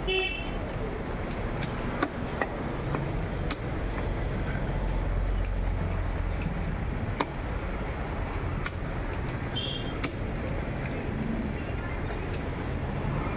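Steady traffic rumble, with scattered sharp knocks and scrapes of a large knife on a wooden chopping block as tilapia are cut.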